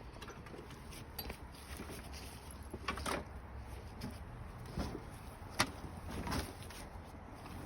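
Scattered knocks and clunks from a heavy old ATC three-wheeler being pushed and wrestled by hand, its front tire frozen. The sharpest knocks come about three, five and a half and six seconds in, over a low steady rumble.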